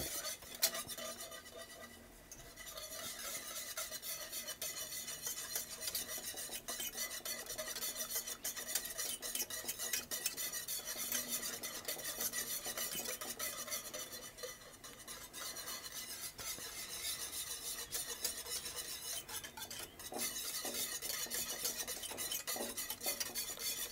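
Wire whisk stirring thick tomato barbecue sauce in an enamelled cast-iron pot, whisking in a spice mix: a continuous rapid scraping and swishing, with short lulls about two, fourteen and twenty seconds in.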